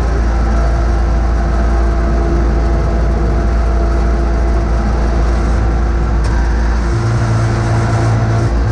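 John Deere X585 garden tractor's V-twin engine running steadily as the tractor pushes snow with its front plow blade. The engine note shifts slightly about seven seconds in.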